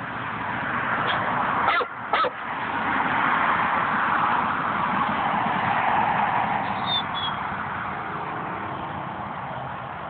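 A steady rushing noise that swells over several seconds and then slowly fades, with two sharp knocks about two seconds in and a brief high chirp near seven seconds.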